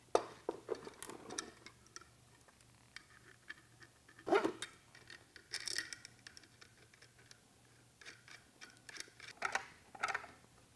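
Steel threaded rods being fitted through holes in a plywood disc and nuts turned onto them by hand: scattered light clicks and metal clinks, with louder knocks about four and six seconds in.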